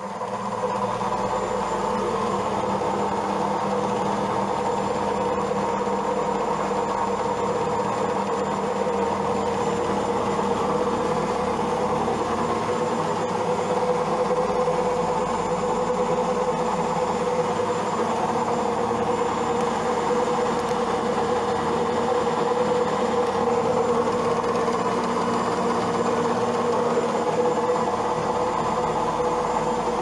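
Old Zanussi front-loading washing machine running its spin cycle with a steady hum, its cabinet vibrating hard.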